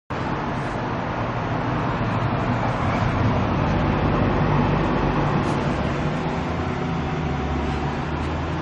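A motor running steadily: a low hum under a dense, even noise. It starts abruptly at a cut.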